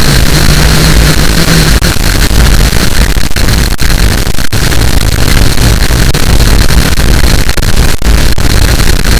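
Loud, heavily distorted harsh noise filling the whole range from deep bass to high hiss, pinned near maximum level, broken by a few split-second dropouts.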